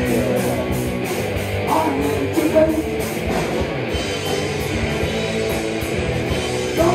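Rock band playing an instrumental passage of a song: two electric guitars and bass over drums, with a steady cymbal beat.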